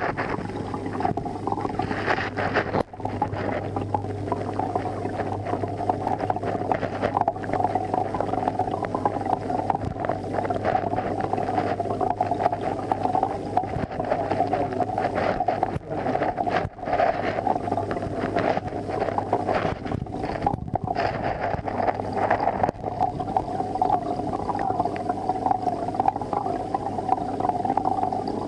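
Steady hum of running aquarium equipment, a low drone under a mid-pitched buzz, dipping briefly a few times.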